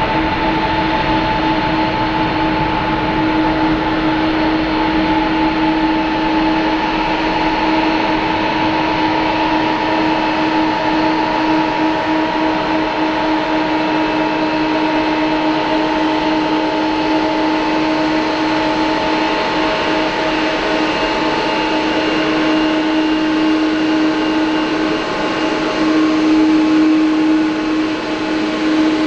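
Boeing 777-200ER's twin turbofan engines at low power as the airliner taxis, a steady whine of several held tones over a rushing hiss. It grows a little louder near the end.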